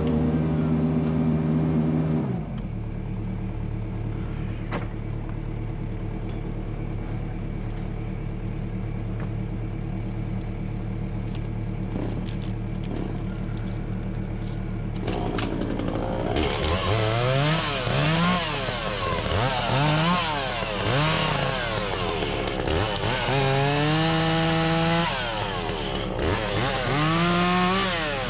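Echo CS-400 two-stroke chainsaw: it runs at a steady high speed for about two seconds, then drops to a lower, steady run. From about halfway it is revved up and down again and again, holding high speed for a couple of seconds once.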